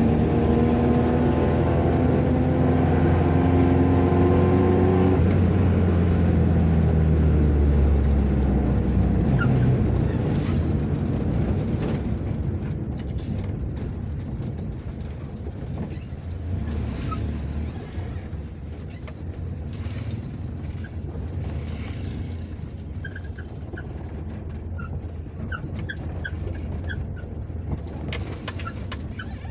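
Mazda MR sedan driving: the engine pulls with rising pitch, drops in pitch about five seconds in as it shifts gear, and pulls again, then eases off after about nine seconds to a quieter steady run with road noise. A few faint short high chirps come near the end.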